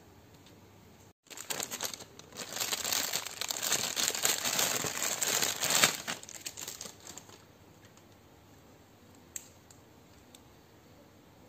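Thin clear plastic bag crinkling as it is handled and opened, a few seconds of dense crackling that is loudest in the middle and then dies away. Later comes a single small click.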